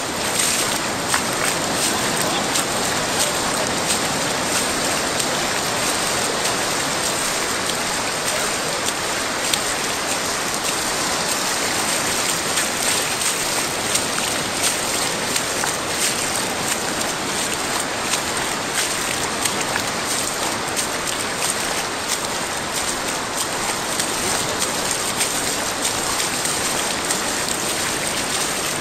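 Steady hiss of shallow surf washing over sand, with many small crackles of water.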